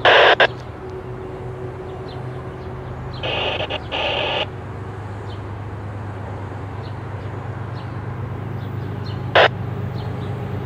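Crows cawing: a couple of loud caws at the start, a pair about three seconds in, and a single caw near the end. Under them runs a low, steady drone that slowly grows louder: the diesel engines of an approaching train's two GE ES44AH locomotives.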